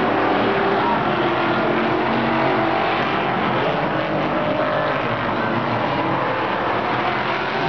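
Engines of several short-track race cars running around an oval at once, a steady, dense engine drone with several overlapping pitches and no single car standing out.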